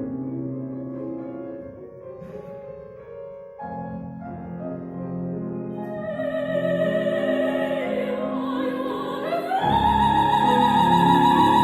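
Classical art song for female voice and piano: the piano plays alone at first, then the singer comes in about halfway with a wavering vibrato and climbs to a loud, held high note near the end over fuller piano chords.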